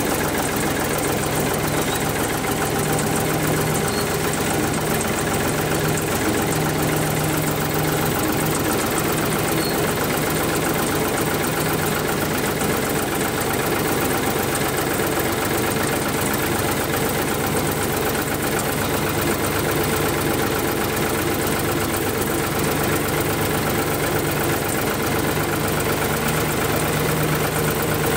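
Steady, unbroken engine-like drone with a low hum that holds one pitch and does not rev.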